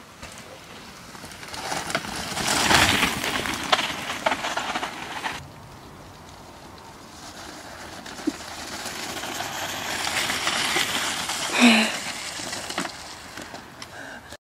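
Mountain bike tyres rolling over leaf-litter and dirt, the noise swelling as the bike passes close, then cutting off sharply about five seconds in; the rolling builds again as the bike crosses wet grass, with a brief pitched squeal or cry about twelve seconds in.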